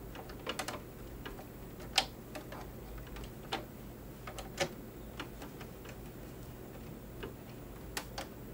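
Irregular small clicks and taps of hands handling a zipper and fabric at a sewing machine's presser foot, with one sharper click about two seconds in. The machine itself is not stitching.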